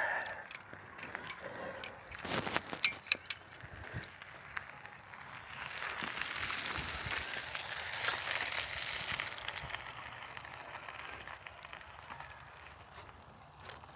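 Campfire crackling, with a few sharp clicks and knocks about two to three seconds in, then a crackling hiss that swells through the middle and fades toward the end.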